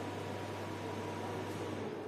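Steady hiss with a low hum that cuts out near the end: background room tone, with no distinct event.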